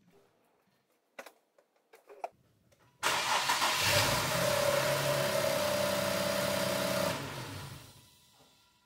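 A few faint clicks, then about three seconds in the Infiniti Q50's engine is cranked on the starter, a steady engine sound with a higher whine, for about four seconds before it cuts off and dies away. It is a start attempt on a car logging crankshaft position sensor code P0335, and this crank sounds kind of normal.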